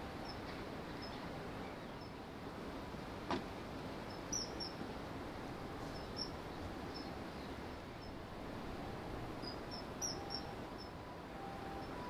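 Common kingfisher calls: short, high, thin chirps scattered over a steady background hiss, bunched about four seconds in and again near ten seconds. A single sharp click a little after three seconds.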